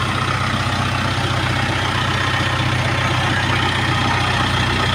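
JCB excavator's diesel engine running steadily at a low, even speed.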